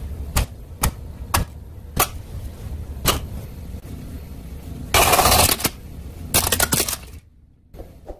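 Sharp plastic clicks from a toy dinosaur dentist biting game as its teeth are pressed down one by one, about one every half second. The last and strongest click, about three seconds in, is the spring-loaded jaw snapping shut. A louder rough noise follows about five seconds in, with a cluster of crackles near seven seconds.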